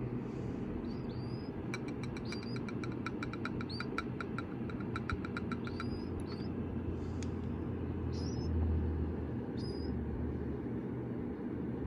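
Baby killdeer chicks giving short, high peeps every second or so, with a rapid run of ticking notes, about six a second, from about two to six seconds in. A steady low hum runs underneath.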